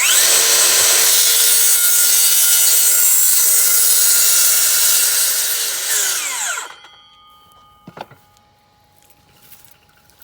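DeWalt DCS575 54V FlexVolt cordless circular saw with an old 36-tooth blade, spinning up and cutting for about six seconds. It then winds down with a falling whine. A single knock follows about a second later.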